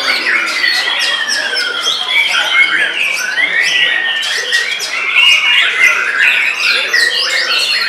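Many white-rumped shamas singing at once: a loud, unbroken tangle of overlapping whistles, sliding notes, trills and rapid chattering.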